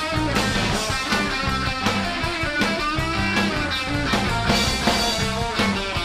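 Late-1980s indie rock band playing an instrumental stretch: guitar over a drum kit, with a steady beat.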